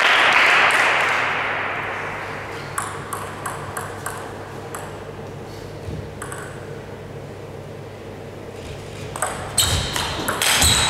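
Audience applause fading out over the first couple of seconds, then a table tennis ball giving a row of sharp, evenly spaced clicks as it is bounced before the serve. Near the end a rally starts, with quicker clicks of the ball off bats and table.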